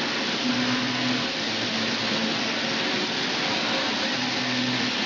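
Welding arc running: a steady, even hiss with a low electrical hum that comes and goes.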